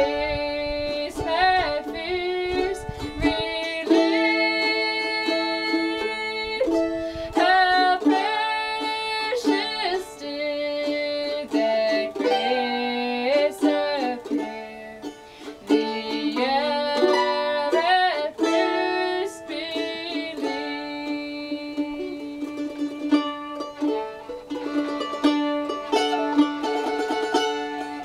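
Mandolin picked as accompaniment to a girl's singing voice in an acoustic folk song.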